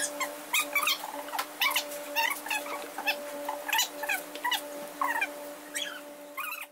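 An animal calling over and over in short high-pitched cries, about two a second, over a steady hum; the sound cuts off suddenly near the end.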